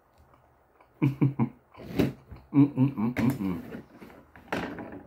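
A man with a mouthful of sushi and wasabi making a run of short closed-mouth hums, sharp breaths and mouth smacks while chewing, starting about a second in.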